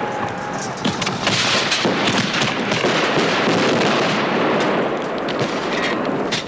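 Fireworks going off: a continuous run of bangs and crackling.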